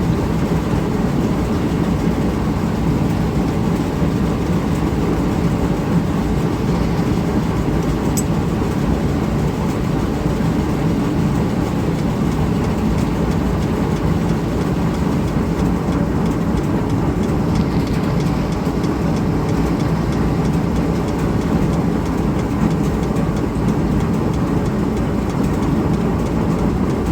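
Antique Champion upright leather sewing machine and its gas-engine-driven line shaft running steadily, with a dense mechanical clatter and low hum that does not let up.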